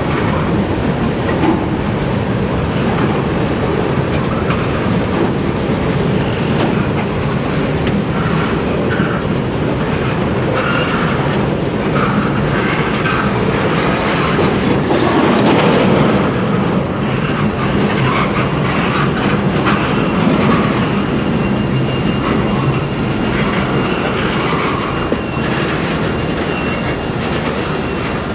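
Freight train cars rolling past at close range: a steady rumble of wheels on rail that swells about halfway through, with faint thin high squeal tones from the wheels in the latter part.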